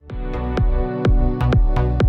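Electronic dance music with a deep bass line and sharp drum hits, starting abruptly.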